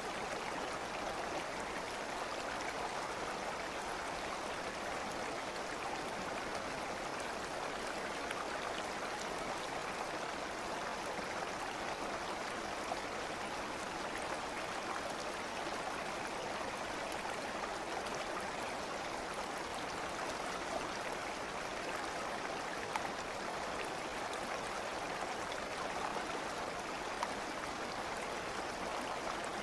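Steady rushing of a stream's running water, unchanging throughout, with a few faint ticks of drips or splashes here and there.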